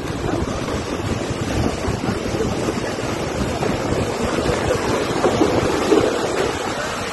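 Heavy rainstorm with strong wind: a steady rush of pouring rain and wind that rises and falls in gusts.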